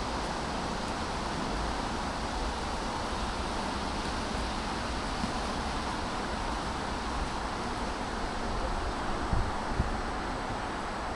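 Steady outdoor background noise, an even hiss with wind rumbling on the microphone. A few brief low knocks come about nine to ten seconds in.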